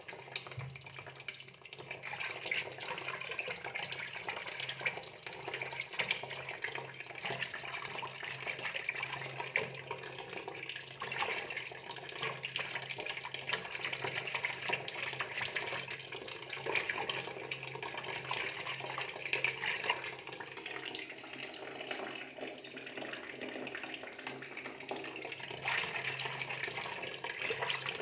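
Steady running and splashing water, like a tap or inflow pouring into a shallow fish tank, with a low steady hum underneath.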